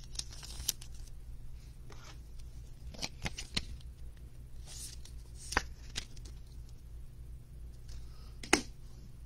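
Light plastic rustling and scattered sharp ticks as a trading card is handled and slid into a clear plastic card sleeve. The sharpest tick comes near the end.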